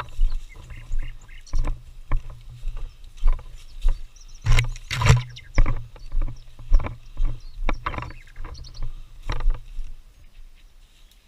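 Footsteps and the rustle and knock of gear from a player moving through woodland undergrowth, heard on a body-worn camera: uneven thumps about twice a second over a low rumble of handling noise.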